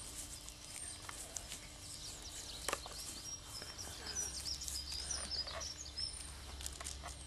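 Small birds chirping and singing, many short high calls in quick succession, with one sharp click about two and a half seconds in.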